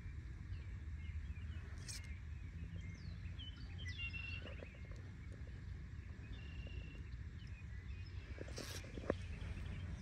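Birds chirping in short calls over a steady low rumble outdoors, with a couple of sharp clicks, one about two seconds in and one near the end.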